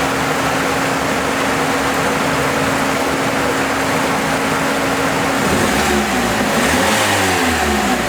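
2003 Chrysler PT Cruiser's four-cylinder engine running with a steady whine, which the owner puts down to a failing transmission fluid pump. After about five seconds the pitch starts rising and falling as the engine revs up and down.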